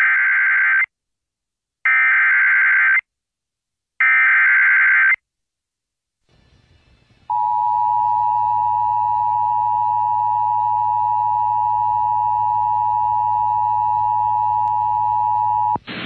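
Emergency Alert System tones on an FM radio broadcast. Three roughly one-second bursts of the SAME header's digital data, encoding a Severe Thunderstorm Warning, come about a second apart. After a pause, the steady two-tone attention signal (853 and 960 Hz) holds for about eight and a half seconds.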